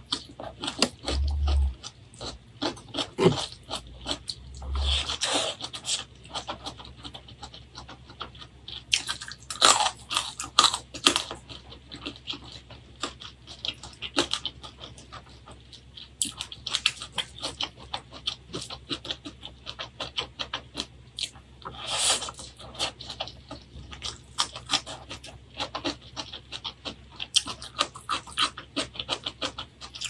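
Close-miked eating: a person chewing a mouthful of spicy mustard greens, rice and fried fish, with many quick wet clicks and crunches. A few longer breathy hisses come about 5, 10 and 22 seconds in.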